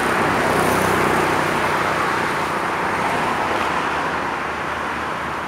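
Steady road traffic on a multi-lane highway: cars and motorcycles going past, a continuous rush of tyre and engine noise that eases a little near the end.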